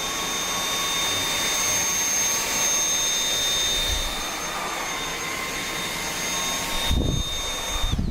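Dyson V8 cordless stick vacuum running: a steady rush of air with a high motor whine. A few low knocks come near the end, then it cuts off.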